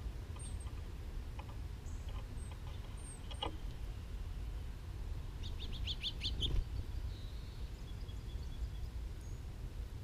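Small songbirds chirping at a backyard seed feeder: a few short, high chirps, then a quick run of about six notes around six seconds in, over a steady low rumble.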